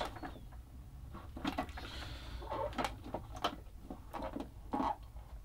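A screwdriver working at the screws of a Tomy Omnibot 5402's plastic back panel, with scattered light clicks and knocks of metal on plastic.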